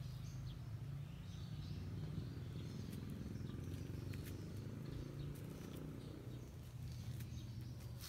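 Faint, scattered bird chirps over a low, steady hum of outdoor background noise.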